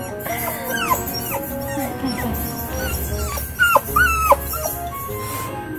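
A dog whining and yipping in several short, high, falling cries, the loudest two close together about two thirds of the way in: an excited dog.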